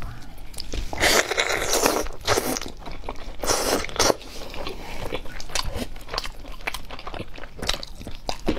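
Close-miked biting and tearing into a sticky glazed braised chicken leg, with a few loud bites in the first four seconds, then chewing with many short wet mouth clicks.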